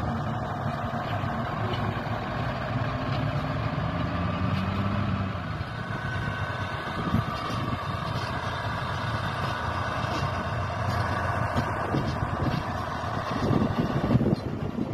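SM42 (Fablok 6Dg) diesel shunting locomotive's engine running steadily as it hauls an unpowered steam locomotive slowly along the track. The engine note rises briefly about four seconds in.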